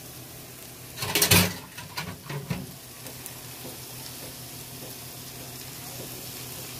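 Vegetables frying in butter in a pan, sizzling steadily. About a second in there is a louder clatter, followed by a few lighter knocks.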